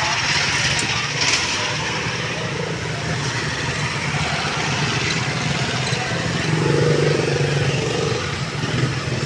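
Street traffic noise with motorcycle engines running nearby. A steady low engine hum swells a little about seven seconds in.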